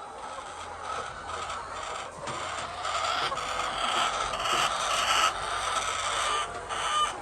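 Hens clucking and calling together in a poultry shed, the din growing louder about three seconds in.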